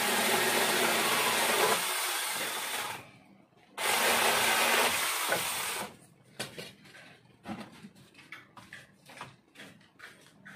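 Cordless battery-powered mini chainsaw cutting into a tree branch in two runs, about three seconds and then about two seconds, a steady motor hum under the loud noise of the chain in the wood. It is followed by scattered light knocks and clicks.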